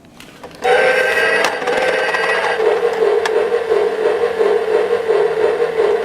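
Lionel anniversary alarm clock going off: a loud electronic alarm sound that starts suddenly under a second in and holds one pitch, wavering up and down in loudness.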